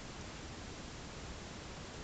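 Steady low hiss of recording noise and room tone, with no distinct sounds standing out.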